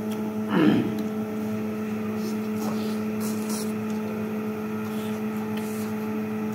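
A steady low hum with a held tone runs throughout, under faint wet mouth clicks from people eating by hand. A short vocal sound that rises and falls comes about half a second in.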